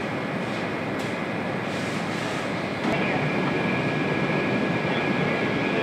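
Steady machinery noise of a car assembly line, a broad rumble with a faint thin high whine running through it; it gets louder about three seconds in.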